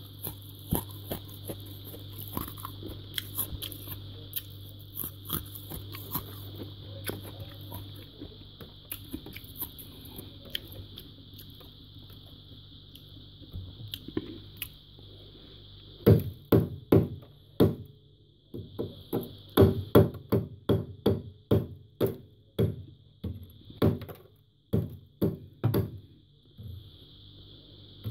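A metal spoon scraping and chipping at thick freezer frost: light scattered crunches at first, then from a little past halfway a run of sharp, loud scrapes about one to two a second. A low hum sits under it and fades out partway through.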